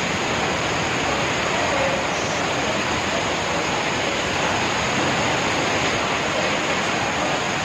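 Loud, steady rush of water from a flood torrent and heavy rain, an even roar with no breaks.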